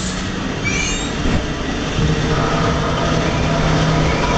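Ghost-train ride car rumbling along its track in the dark, with a short high rising squeal about a second in and a steady low hum joining from about halfway through.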